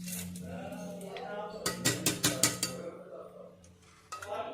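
Background music: a melody over a held low tone, with a quick run of drum hits about two seconds in.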